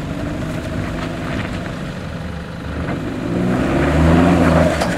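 Toyota Hilux four-wheel-drive engine under load climbing a rutted rocky dirt track, the revs rising about three seconds in and loudest near the end before easing off.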